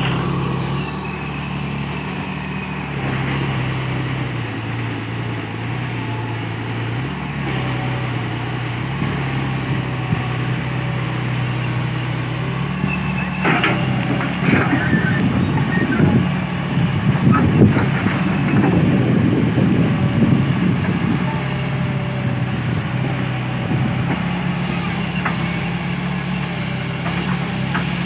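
Tata Hitachi EX210LC excavator's diesel engine running steadily, its note stepping up and down as the hydraulics work the arm. From about 13 seconds in, sharp clanks and rough scraping as the bucket digs into stony soil and dirt spills from it, the loudest part, easing off after about 20 seconds.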